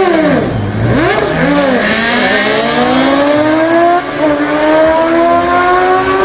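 Racing car engine sound clip, loud: the pitch swoops down and back up over the first two seconds, then climbs steadily as the car accelerates. It cuts in and out abruptly.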